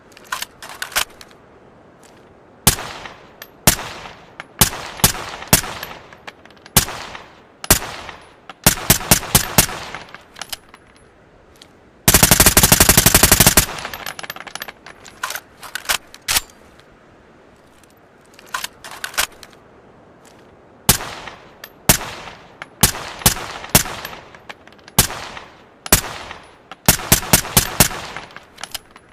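Suppressed ARN-180 assault rifle firing single shots and short bursts, with one longer full-auto burst of about a second and a half near the middle.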